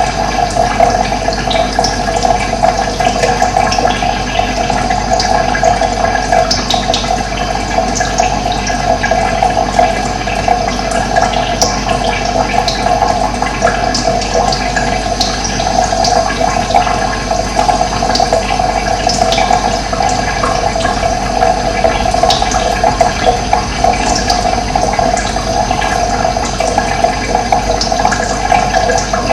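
Steady rush of running water, with brief high bird chirps scattered over it.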